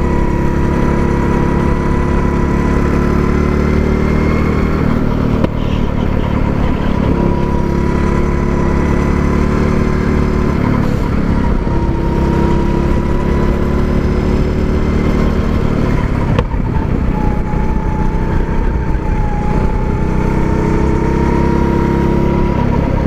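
A 270 cc go-kart's single-cylinder four-stroke engine running at a steady, high speed on the move, heard from on board the kart. Its pitch dips slightly about two-thirds of the way through and rises a little again near the end.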